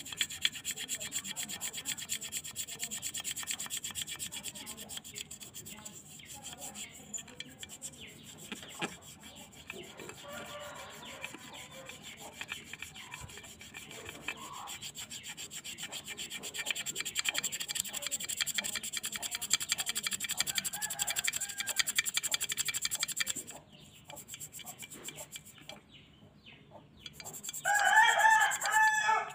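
Toothbrush bristles scrubbing a wet, rusty metal motorcycle pedal bracket in quick back-and-forth strokes, stopping a few seconds before the end. Near the end a rooster crows loudly.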